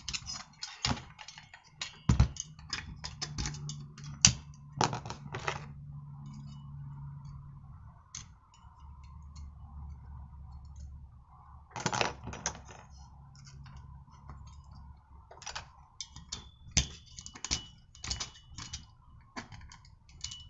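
Small metal tools clicking and scraping against the flywheel hub of a brushcutter engine as a washer is prised off the crankshaft: irregular light clicks, with a quieter stretch in the middle.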